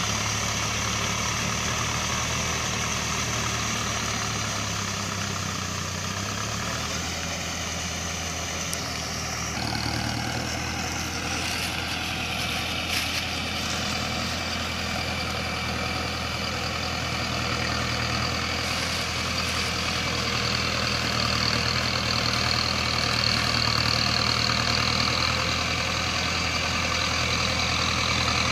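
Mahindra Arjun Novo 605 DI tractor's diesel engine running steadily under load as it drags a Shaktiman rotavator through a flooded paddy field, puddling it. Its note shifts slightly partway through.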